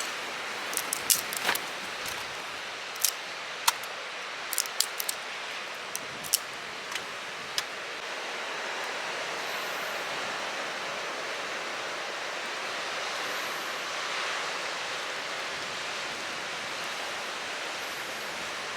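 Steady rushing noise of wind and surf on a beach, with a scattered run of sharp clicks and taps in the first several seconds.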